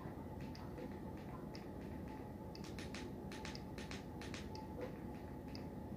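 Quiet room tone: a steady low hum with a faint high tick about once a second and a few scattered small clicks.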